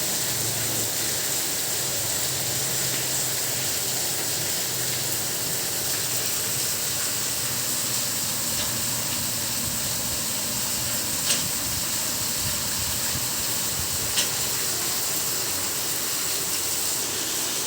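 Steady rain falling in an even hiss, with two sharper taps a few seconds apart in the second half.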